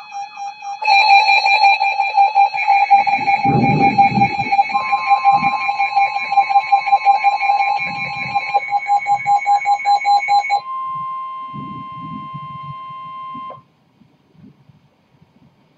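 Emergency alert for a severe thunderstorm warning: a loud electronic alarm of rapid pulsing beeps, with the steady weather-radio warning alarm tone joining about five seconds in. The beeping stops about ten and a half seconds in, and the steady tone runs on alone until it cuts off suddenly about two seconds before the end.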